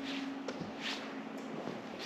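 Footsteps on a cave floor: a knock about half a second in and a scuff just before the one-second mark, over a steady low hum.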